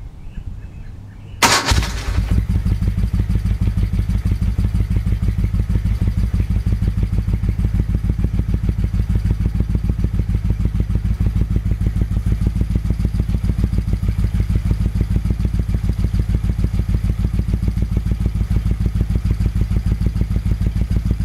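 1974 Moto Guzzi Eldorado 850's air-cooled V-twin firing up about a second and a half in, catching at once, then idling steadily with an even pulse through Mistral stainless slash-cut slip-on mufflers.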